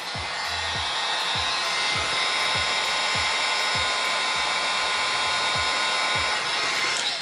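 Heat gun blowing steadily, softening a drip of resin on a cheese-knife blade; it starts at once and is switched off about seven seconds in. Background music with a steady beat runs underneath.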